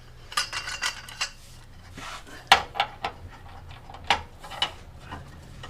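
Irregular metallic clinks and clanks of a hand socket wrench being worked on the tight 21mm lower control arm mount bolts to get them moving. There is a cluster of light clinks in the first second, then a few louder single knocks.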